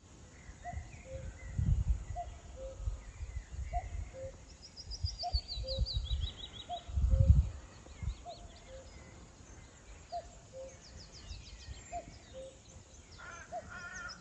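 A common cuckoo calling its falling two-note "cuck-oo" over and over, about every second and a half, with smaller songbirds trilling higher up. Two gusts of wind buffet the microphone, about two seconds in and again about seven seconds in.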